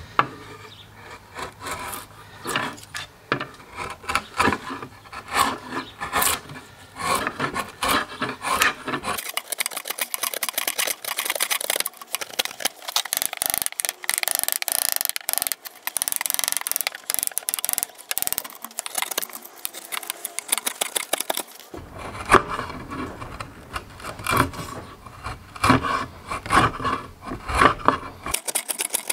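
Hand gouge paring a laminated cedar paddle blade: a run of short, rasping carving strokes through the wood, coming quicker and denser through the middle.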